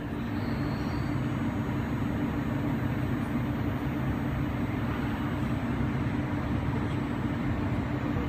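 Steady low hum of a stationary Pendolino electric train standing at the platform, its onboard equipment running.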